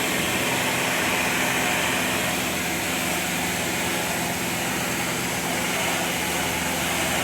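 Pressure washer running steadily: the even hum of its motor under the continuous hiss of the high-pressure water spray against the house siding.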